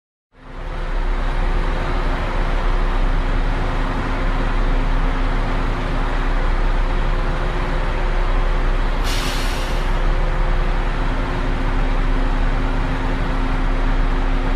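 Bus station ambience: idling bus engines with a steady low rumble and a dense wash of traffic noise. About nine seconds in comes a short, sharp hiss of air from a bus's air brakes.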